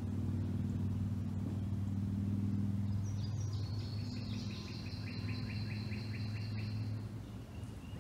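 A steady, low engine drone from a distant motor vehicle, easing off near the end. About three seconds in, a songbird sings a fast, high trill of rapidly repeated notes for about three and a half seconds.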